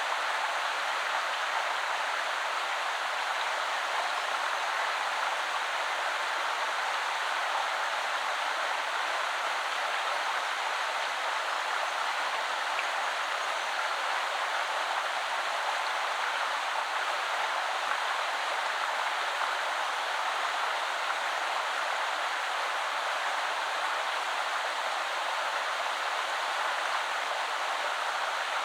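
Shallow river flowing over stones, a steady even rush of water with no deep rumble.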